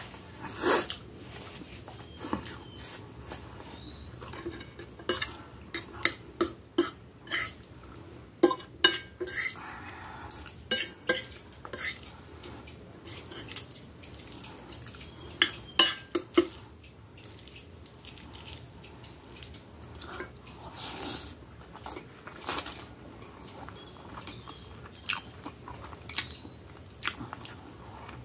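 Metal fork and knife clinking and scraping on a glass plate as spaghetti is cut and twirled, in a run of sharp clinks that bunch together from about five seconds in to the middle, with a few faint high squeaks.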